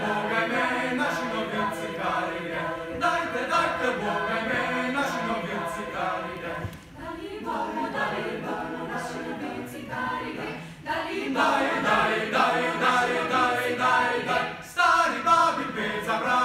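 Mixed choir of men's and women's voices singing a Slovenian folk song a cappella, in phrases with short breaks about every four seconds.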